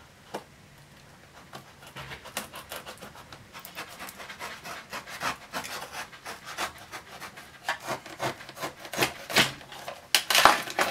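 Small cardboard box being opened by hand: a run of scraping, rubbing and rustling of cardboard and packaging, getting busier and louder near the end.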